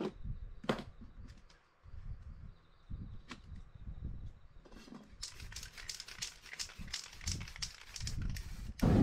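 Aerosol spray-paint can hissing in rapid short bursts as paint is sprayed over a paper stencil, starting about halfway in. Before it come light handling clicks of the stencil sheet, and a thud comes at the very end.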